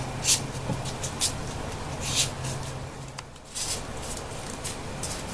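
Folded paper triangle units rustling and crackling in short, irregular bursts as they are pushed into a 3D origami model, over a low hum that drops out about three seconds in.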